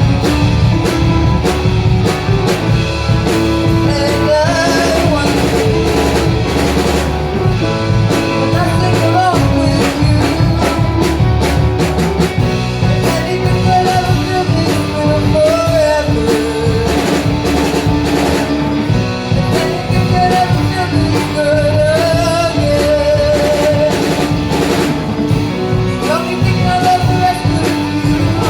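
Live rock band playing a song: a singer's voice over guitar, bass and a drum kit keeping a steady beat.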